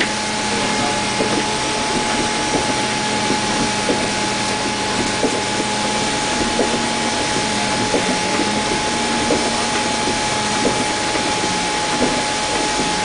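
City bus running, heard from inside the cabin: a steady, loud drone with a constant whine, and a light knock repeating about every second and a half.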